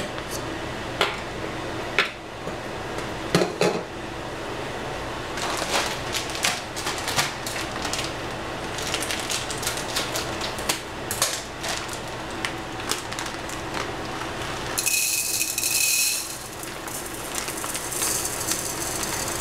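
Dishes clattering and knocking in a stainless steel sink as a bowl is set down. Near the end, arborio rice is poured from its plastic bag into the bowl with a steady hiss.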